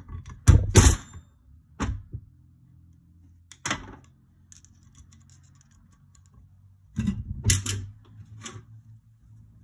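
Sharp metallic clicks and knocks from a Yamaha YZ250F cylinder head and its valve spring hardware being handled and knocked against the bench while the valve springs and retainers come out. The knocks come singly at first, then as a cluster about seven seconds in.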